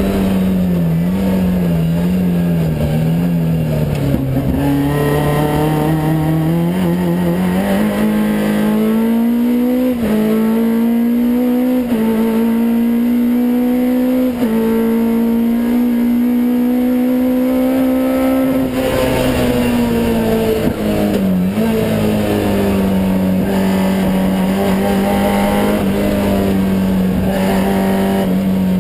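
Vauxhall Nova's naturally aspirated race engine on individual throttle bodies, driven hard on track. The note wavers at first, then climbs steadily with three quick breaks midway, falls off about two thirds of the way in and settles at a steady pitch.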